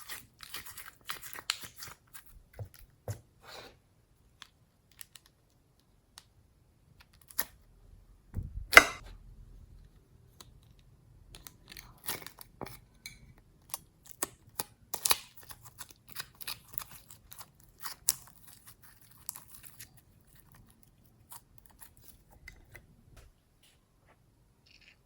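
Slime being squeezed and stretched by hand, giving irregular sticky clicks and crackles, with one louder pop about nine seconds in.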